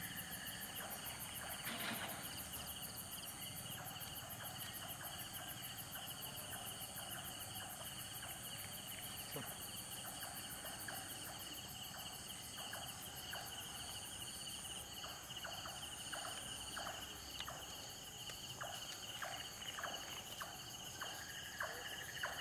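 Night insect chorus: several steady, shrill trills and pulsing chirps at different pitches, going on without a break. A brief rustle comes about two seconds in, and soft footsteps tap and scuff on the ground through the second half.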